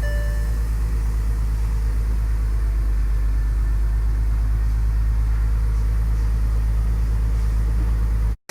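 Bentley engine idling steadily with a low, even rumble, running again after its engine was refitted and the transmission rebuilt. A short electronic chime sounds at the very start, and the sound cuts off suddenly near the end.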